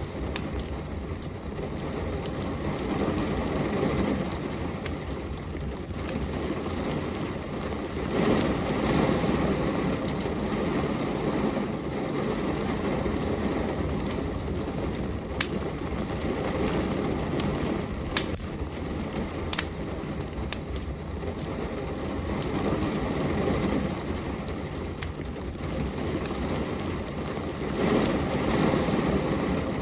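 Steady rain with the sharp, scattered pops and crackles of a burning wood fire. A deeper rumbling rush swells about eight seconds in and again near the end.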